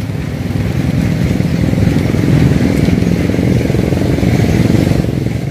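Small diesel engine running steadily at a fast, even beat.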